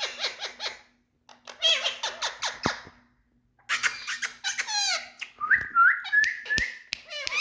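Indian green parrots chattering and squawking in quick bursts of bending, whistly calls, broken by two short pauses, then a run of short rising whistled notes about every half second.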